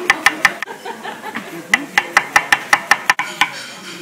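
Chef's knife slicing cucumber on a cutting board: quick, even chops about six a second, pausing briefly about half a second in and starting again for another run. A single sharp knock comes just after three seconds.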